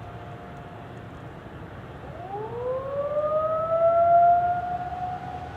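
Distant Federal Signal 2001-130 outdoor warning sirens. A faint steady tone fades early on. From about two seconds in, a siren winds up, rising in pitch and then holding steady. It swells to its loudest about four seconds in, then eases.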